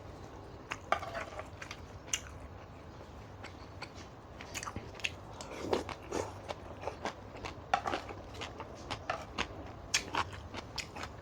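A person eating close to the microphone: irregular crunching, biting and chewing of spicy Thai seafood papaya salad with vegetables, over a steady low hum.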